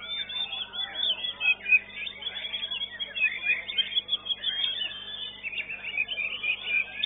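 White-rumped shama (murai batu) singing in a contest cage: a fast, unbroken run of high chirps and short whistles.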